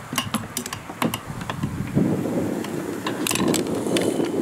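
Small sharp clicks and ticks from hands working a fishing hook and terminal tackle while unhooking a small fish, in two quick clusters. Under them runs a low rumble of wind on the microphone, stronger in the second half.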